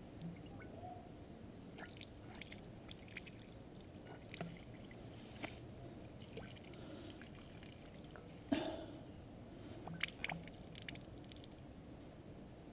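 Water sloshing faintly inside a plastic coolant expansion tank as it is shaken to rinse it out, with small clicks and knocks of the plastic. One louder knock comes about eight and a half seconds in.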